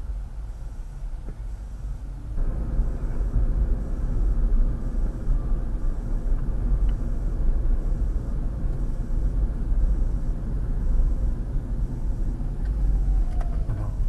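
Car interior road and engine noise picked up by a dashcam microphone: a steady low rumble that gets louder about two seconds in, once the car is moving at around 25 mph.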